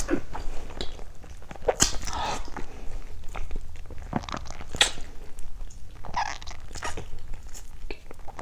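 Close-up eating sounds of a person biting into and chewing roasted sweet potato: irregular wet smacks, clicks and mouth noises.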